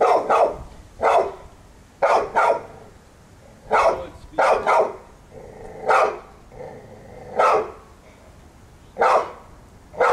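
Blue-coated American Bully barking at a decoy's bite sleeve: about a dozen short, loud barks, roughly one a second and some in quick pairs.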